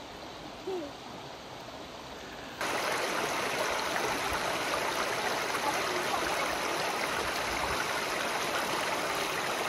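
Shallow creek water running over rocks and pebbles, a steady rushing sound. It is fainter at first, then jumps suddenly louder about two and a half seconds in and stays even.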